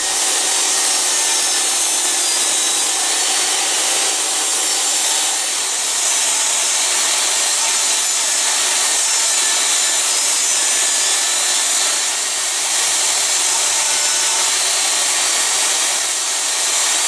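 DeWalt jobsite table saw running steadily and loudly while ripping plywood into narrow strips.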